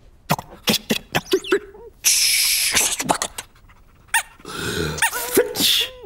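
Cartoon dog noises and comic sound effects: a run of quick clicks, then a loud sneeze-like burst about two seconds in and another noisy burst near the end.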